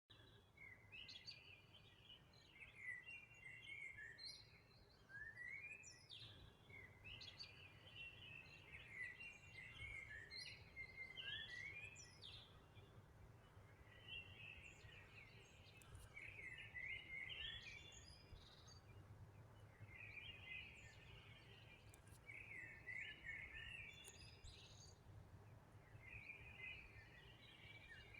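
A songbird singing faint, repeated short phrases of quick chirps and trills, one phrase every two to three seconds, over a faint low rumble.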